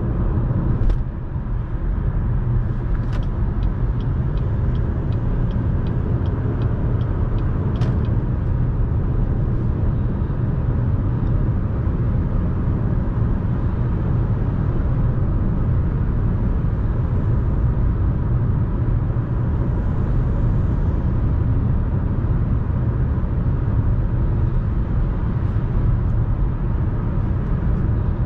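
Steady highway road noise inside a Chevrolet Malibu 1.35T's cabin at around 95 to 110 km/h: low tyre and engine rumble. A run of even, light ticks comes a few seconds in, about three a second for some four seconds.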